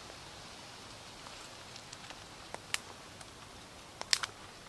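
A few short, sharp clicks over a steady faint hiss: two about halfway through, then a louder quick cluster of three near the end.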